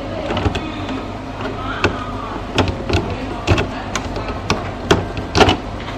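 Irregular sharp plastic clicks and knocks as original Epson ink cartridges are unclipped and pulled from an inkjet printer's cartridge carriage, about eight in all, with a louder one near the end.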